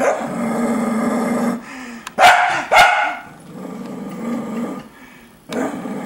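Cocker spaniel 'talking' for beer: a drawn-out growling grumble, then two sharp barks a little over two seconds in, then more low grumbling.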